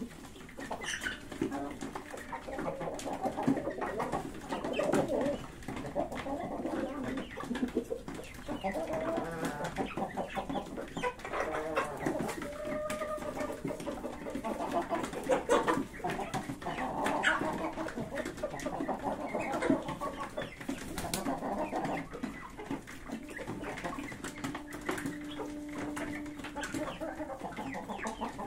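Domestic pigeons cooing, mixed with chickens clucking, in a steady stream of overlapping low calls.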